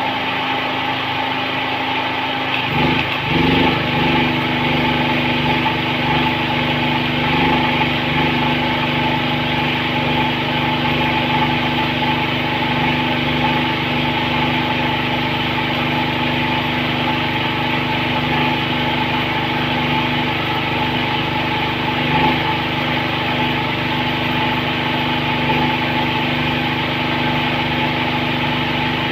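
Small engine running steadily at a constant speed, with a hiss above it and a couple of brief rises in level, about three seconds in and again near the end.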